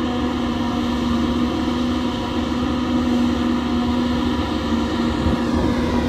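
Tractor-driven JF forage harvester and its New Holland tractor running steadily while chopping standing corn for silage: a loud, even machine drone with a steady hum. Near the end a higher whine drops in pitch.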